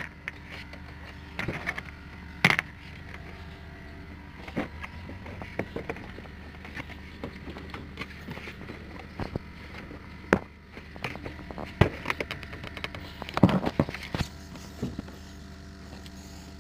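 Irregular clicks and knocks of a plastic car bumper cover and its fixing screws and clips being handled and pressed into place. A steady low hum runs underneath.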